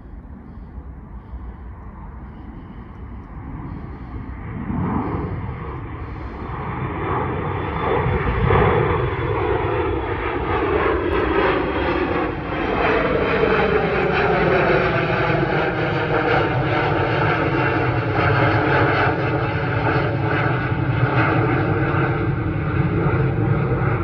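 Twin-engine regional jet climbing out after takeoff and passing overhead. Its engine noise swells over the first several seconds and then stays loud, with whining tones that slide down in pitch as it passes.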